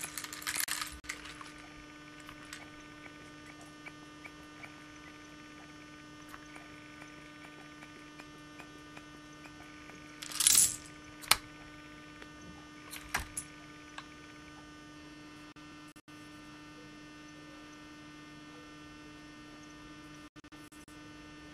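A steady low electrical hum, with a few short rattles and sharp clicks from loose Lego bricks and the plastic parts of a Lego Technic pneumatic excavator as its shovel digs. The loudest rattle comes about ten seconds in.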